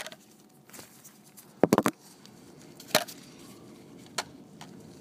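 A few sharp clicks and knocks of hands handling a camera and tools, with a quick run of clicks about two seconds in, over a faint low hum.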